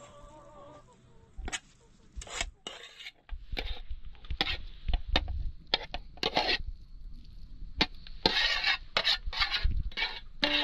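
Irregular rustling and scraping with short knocks, sparse at first and busier and louder from about three seconds in.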